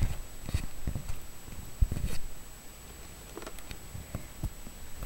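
Handling noise close to the microphone: scattered soft clicks and knocks as the camera and a plastic Nerf blaster are moved about, with a pair of louder thumps about two seconds in and two more a little after four seconds.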